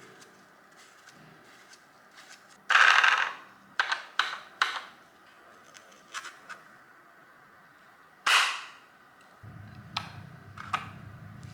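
Two loud, sharp bangs, each trailing off over about half a second, with lighter clicks and knocks in between. A low steady hum sets in near the end.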